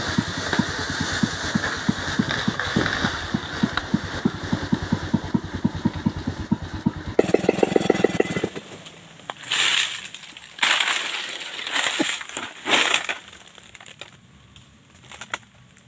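Two-stroke chainsaw idling with an uneven, pulsing putter. After a cut about seven seconds in it runs on briefly and stops. The rest holds a few short bursts of crackling and rustling, like dry leaves and brush being crushed.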